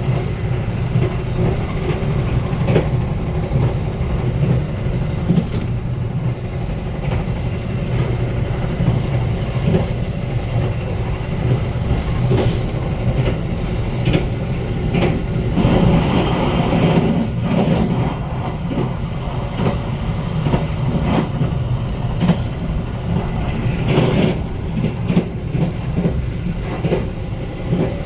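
Passenger train of the Argo Bromo Anggrek running along the line, heard from on board: a steady low rumble with irregular clicks and knocks from the wheels on the track. It grows louder for a couple of seconds about halfway through.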